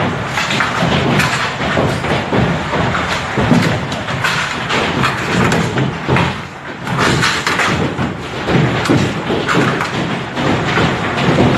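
Hailstorm: large hailstones pelting down hard with heavy rain, a dense, continuous clatter of impacts on hard surfaces.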